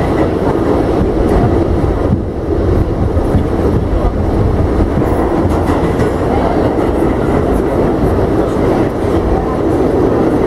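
R68A subway car running along the track: a loud, steady rumble of wheels on rails, heard from inside the car.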